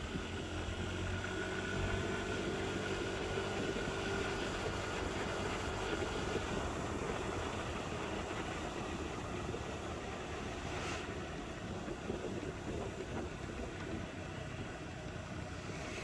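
Motorcycle ride on the road: a steady rush of wind and road noise with the engine running underneath, its tone audible in the first few seconds and then fading into the rush. A short tick about two-thirds of the way through.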